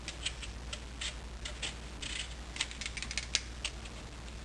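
A blade scraping the white inner layer off raw papaya flesh: a run of short, irregular scraping clicks, a few to several a second.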